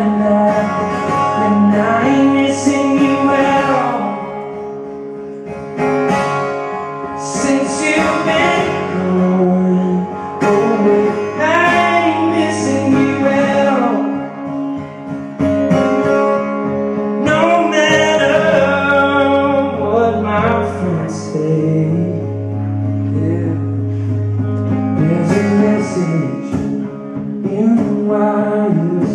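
A song: a man singing over acoustic guitar.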